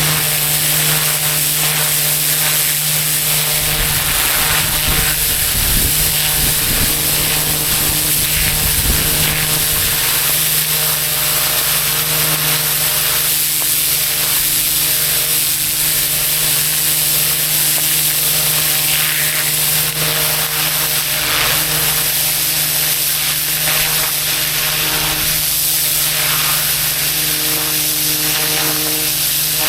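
Pressure washer running steadily: an engine-driven pump's hum under the hiss of high-pressure water spraying onto pavement.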